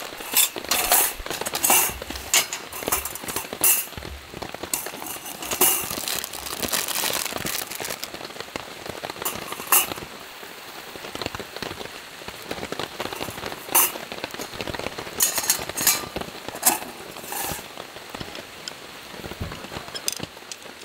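Steady rain pattering on a tarp, broken by scattered sharp clicks and clinks as camping gear is unpacked and handled, including a metal mosquito-coil case.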